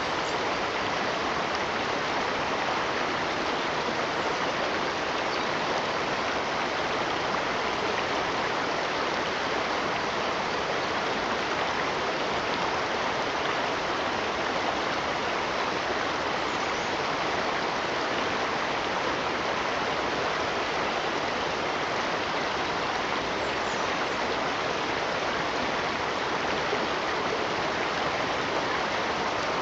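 Flowing water: a steady, even rush without breaks or changes in level.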